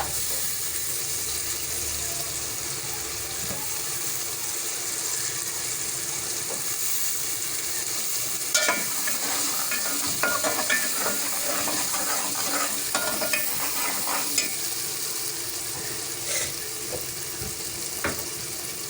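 Peas frying in hot oil with spice masala in a cooking pot, a steady sizzle. From about halfway in, a spoon stirs and scrapes against the pot with a run of clinks.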